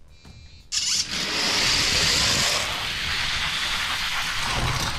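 Hot Wheels diecast cars released from the starting gate with a sudden snap about a second in, then racing down orange plastic track: a loud, steady rush of small wheels rolling on plastic.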